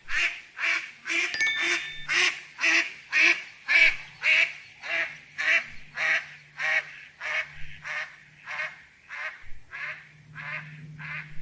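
Duck quacking in a long, even run of short quacks, about two a second, growing slightly fainter toward the end. A single bright ding sounds about a second and a half in.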